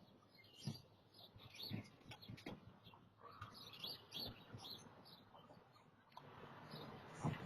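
Small birds chirping faintly, with a few soft knocks, and a low noise haze that swells near the end.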